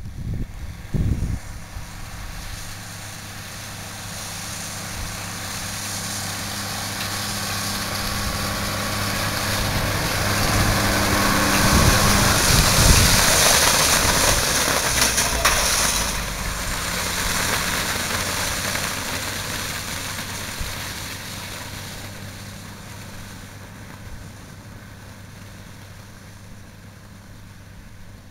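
A tractor engine running steadily while it tows a Tonutti V12 wheel rake past, swelling to its loudest about halfway through and then fading away. A rushing hiss from the rake wheels sweeping the hay peaks as it passes, with a few sharp clicks.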